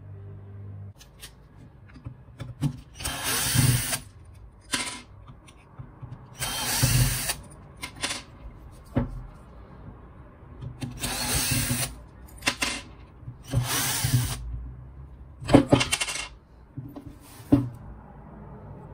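Powered screwdriver running in four short spurts of about a second each, backing out the four screws of an angle grinder's gear head, with a few sharp clacks of metal parts in between and near the end.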